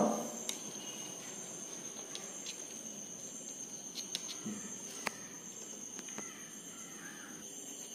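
Quiet background with a faint, steady high-pitched whine and a few soft, isolated clicks.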